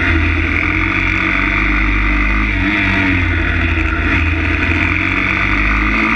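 Single-cylinder four-stroke engine of a 160 cc pit bike running under way, heard onboard. The revs hold fairly steady, with small dips in pitch about two and a half seconds in and again near the end.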